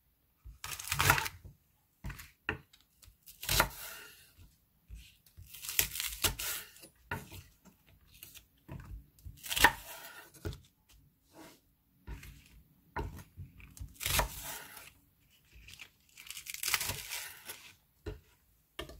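Chef's knife slicing lengthwise through a Korean leek (daepa) on a wooden cutting board. About six separate longer cuts come a few seconds apart, with light knife and board taps between them.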